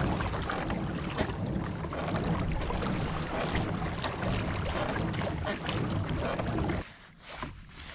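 Wind noise on the microphone of a camera mounted on a fishing kayak out on open water, a steady heavy rush that drops off sharply about seven seconds in.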